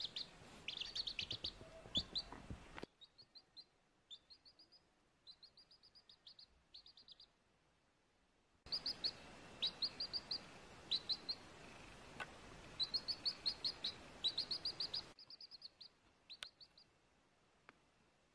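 Baby chick peeping: short high cheeps in quick runs of several at a time, with brief pauses between runs. A faint hiss behind them cuts in and out abruptly.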